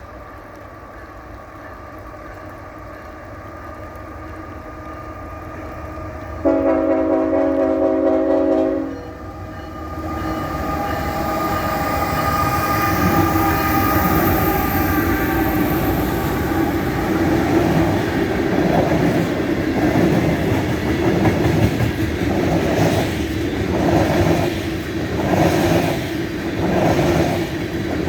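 Diesel freight train approaching and passing, its engines growing louder. The locomotive's air horn sounds one long blast of several tones together, about two and a half seconds long. As the cars roll by there is a regular beat about once a second.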